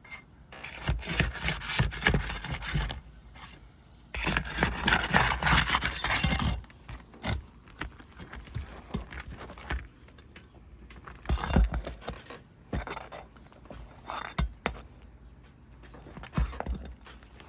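Steel flat bar scraping and sliding under asphalt roof shingles as it is worked in to pry at a nail holding the shingle down. Two long stretches of rough scraping come in the first six seconds or so, followed by scattered knocks and clicks.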